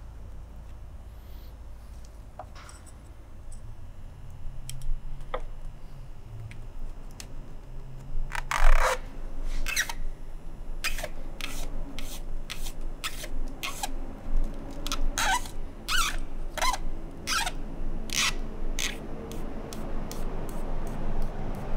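Strands of rattan cane scraping and clicking as they are threaded and pulled through the woven cane of a chair seat by hand; a few faint ticks at first, then a busy run of short sharp scrapes from about a third of the way in.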